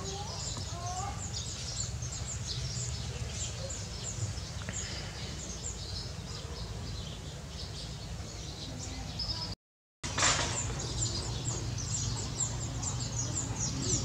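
Many small birds chirping in quick, high, continuous chatter over a steady low hum. About ten seconds in, the sound drops out for half a second, then comes back with a brief burst of noise.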